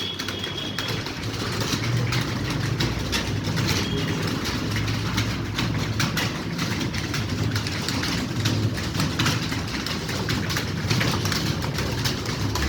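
Many computer keyboards being typed on at once: a dense, continuous clatter of key clicks. Under it runs a steady low engine rumble.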